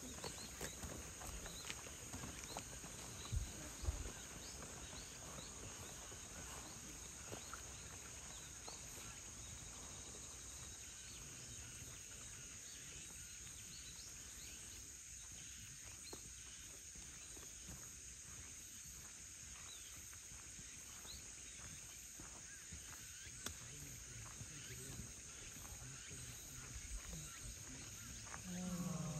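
Insects chirring in a steady, even high-pitched chorus, with two short low thumps about three and a half and four seconds in.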